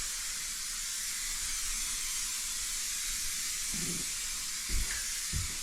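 Spray adhesive for vinyl plank flooring hissing steadily as it is sprayed onto the floor, with a few soft knocks near the end.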